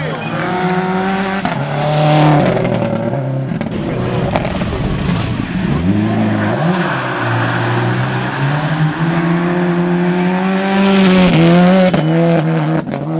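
Rally car engine revving hard on a special stage, its pitch climbing and dropping through several quick gear changes, with a rush of tyre and road noise near the end.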